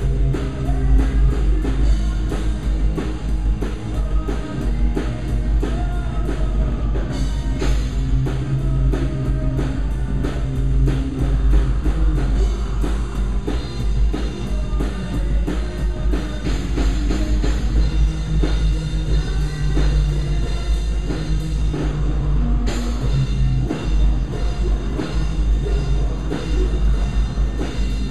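A post-hardcore rock band playing live and loud, with drum kit, electric guitars and bass. The band shifts briefly about seven seconds in and again near the end.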